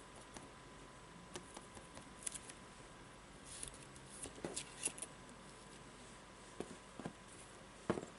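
Faint, scattered light taps and scuffs of hand painting: a round sponge dauber dabbing paint onto a cardboard sheet, and the cardboard being shifted on the table. The sharpest tap comes near the end.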